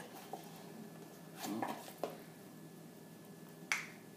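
Light rustling and a few sharp clicks from a cardboard baking soda box being opened and handled, and a measuring spoon set down on a countertop; the loudest click comes near the end.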